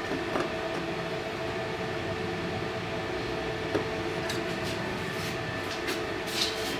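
Steady machine hum with several constant tones, broken by a few faint light clicks.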